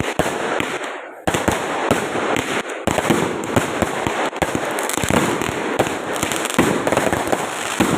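Fireworks going off in rapid succession: a dense crackle of many sharp pops, dipping briefly about a second in, then carrying on.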